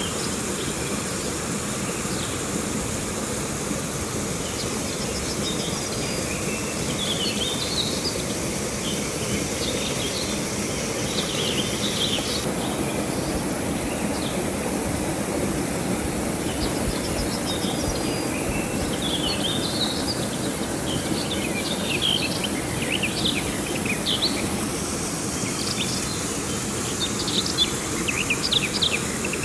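Steady rush of river water, with birds chirping on and off, more often in the second half, over a continuous high insect buzz.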